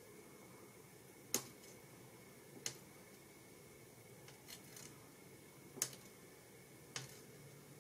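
Small sharp clicks of seed beads and fine wire being handled in the palm as beads are threaded onto the wire. There are four distinct clicks a second or more apart and a couple of fainter ones between them, over quiet room tone.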